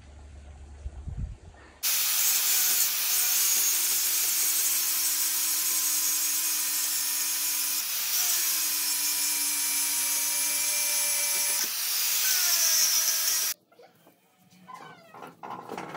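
Electric angle grinder with a cut-off disc grinding into a steel shaft clamped in a vise. It runs loudly for about twelve seconds, its whine dropping in pitch as the disc bites, with a brief dip about halfway. It starts about two seconds in and cuts off sharply near the end.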